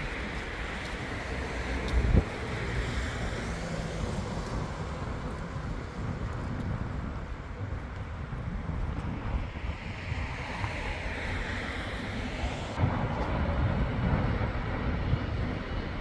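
Urban street ambience: a steady wash of passing traffic with wind buffeting the microphone, and a brief thump about two seconds in.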